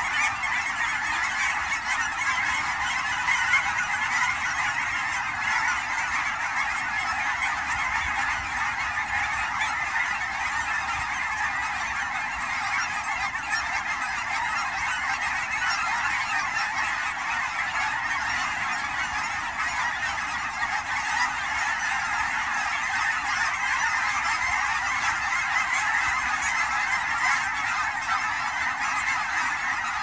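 A large flock of Canada geese honking, countless overlapping calls merging into one steady, unbroken chorus.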